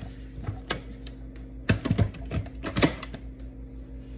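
Handling a food processor before blending: a series of about six sharp plastic clicks and knocks, spread unevenly, with a faint steady hum beneath.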